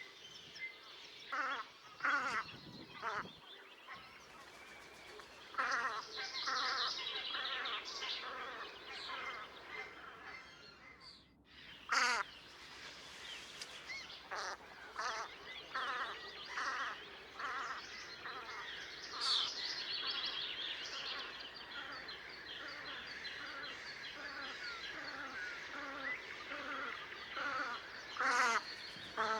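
Ducks calling over and over, many short calls overlapping, some in quick runs, with a few louder single calls a couple of seconds in, about twelve seconds in and near the end.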